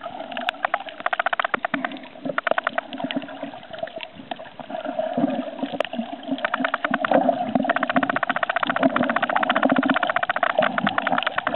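Muffled underwater sound picked up by a camera held under the sea: a steady wash of moving water with a dense crackle of sharp clicks, thickest in the second half.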